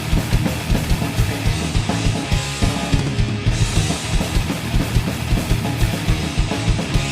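Thrash metal band playing an instrumental passage: fast, driving drum kit with rapid bass drum over distorted electric guitars and bass guitar, no vocals.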